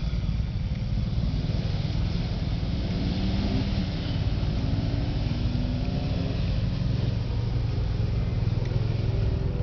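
Jeep engine running under load on a dirt course, its pitch rising and falling several times as the driver works the throttle, over a steady low rumble.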